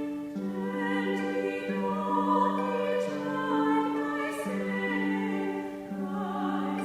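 Choir singing a hymn tune in parts, with long held notes that change every second or so.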